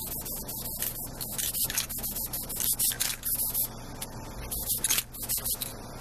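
Aerosol can of gray primer spraying in short hissing spurts, about one a second.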